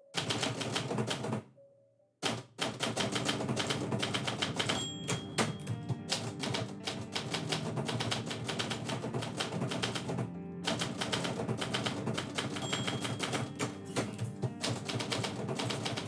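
Manual typewriter being typed on in quick runs of keystrikes, with a short pause about a second and a half in.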